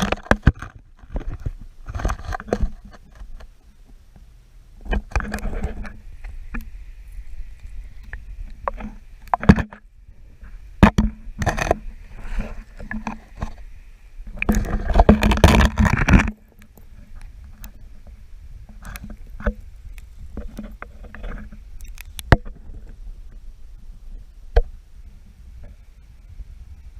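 Stream water splashing and sloshing in irregular bursts while a netted trout is unhooked, with scattered knocks and clicks of handling. The loudest splashing comes about fifteen seconds in; after it only a low, steady water sound and an occasional click remain.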